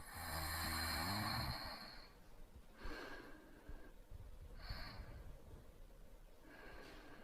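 A man snoring lightly in his sleep: one snore with a low rattle over the first two seconds, then three softer breaths.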